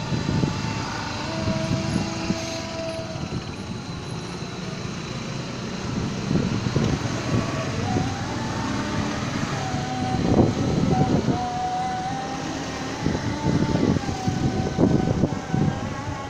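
Steady motor-vehicle rumble with a wavering whine. It swells in louder rough surges about ten seconds in and again near the end.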